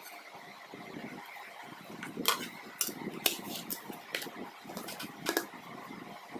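A metal cake pan and a plate clinking and knocking against each other and the counter as the pan is turned out onto the plate, with about half a dozen sharp clinks between about two and five and a half seconds in.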